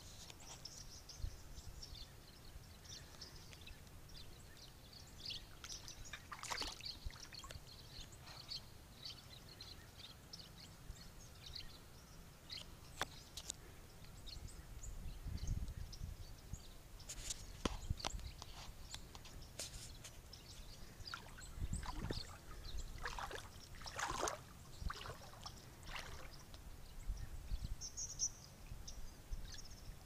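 A large flock of birds calling, many short high chirps overlapping throughout, with a few louder, harsher calls and occasional low rumbles.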